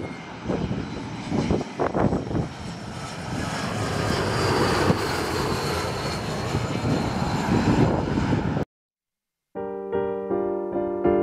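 Jet airliner passing low overhead on its landing approach, its engine roar swelling a few seconds in. Near the end the sound cuts off abruptly and electric piano music begins.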